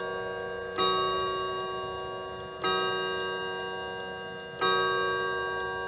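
Howard Miller Webster mantel clock's 1050-020 chime movement striking its chime rods with its hammers: three evenly spaced strokes about two seconds apart, each ringing on and fading, the steady count of an hour strike.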